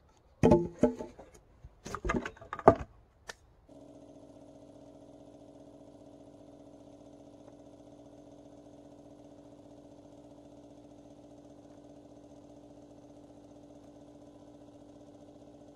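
Rough wooden planks of a sawhorse knocking together several times, sharp and loud. From about four seconds in, a faint steady hum continues.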